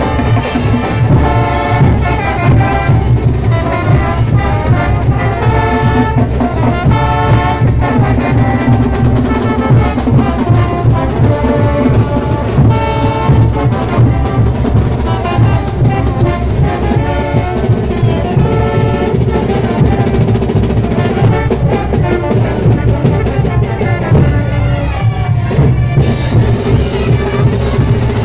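Live marching brass band playing without a break: trumpets and trombones carrying the melody over sousaphones, bass drums and cymbals.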